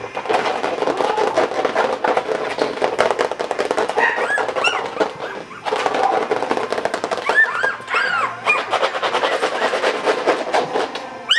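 Three-week-old Coton de Tulear puppy growling, a long rough rattle that breaks off briefly twice. Short high yips, rising and falling in pitch, come through it about four seconds in and again around eight seconds.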